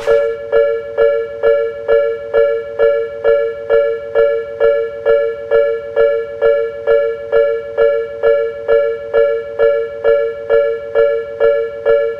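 Japanese railway level-crossing warning bell ringing: one pitched ding, repeated evenly about two and a half times a second, each one decaying quickly.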